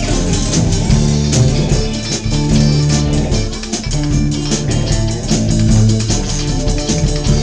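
A small live band playing: a bass line of held low notes, drums with cymbal strikes, and keyboard.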